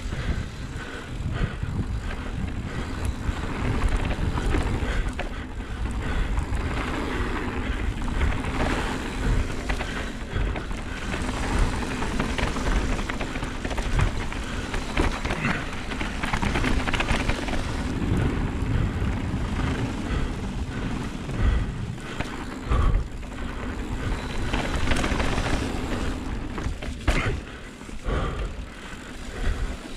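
Mountain bike descending a trail: tyres rolling over dirt and stones, with frequent short knocks and rattles from the bike over bumps. Wind buffets the microphone throughout.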